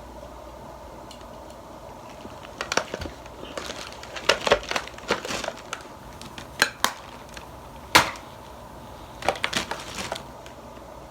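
Irregular clicks, taps and rustles of small objects being handled close to the microphone, starting a couple of seconds in and stopping near the end, the sharpest knock about eight seconds in, over a steady low hum.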